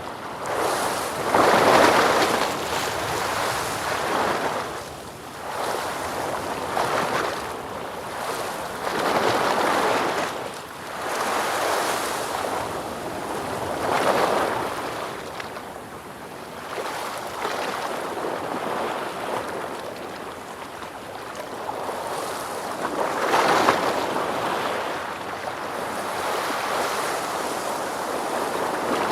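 Ocean waves breaking and washing in: surf noise swelling and falling away every few seconds, with the strongest breaks near the start and about two-thirds of the way through.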